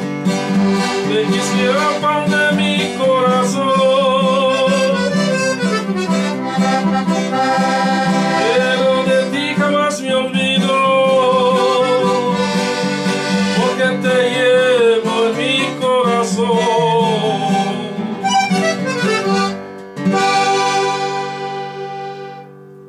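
Norteño corrido played on a button accordion and an acoustic guitar, with a man singing over them. The song ends about 20 seconds in on a held final chord that fades away.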